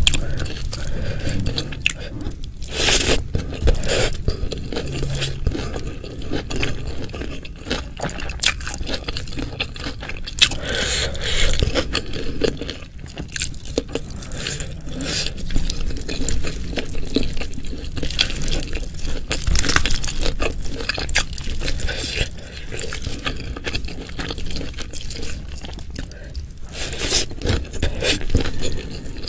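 Close-miked eating sounds: a person chewing and crunching food, with scraping, made up of many irregular short crackles.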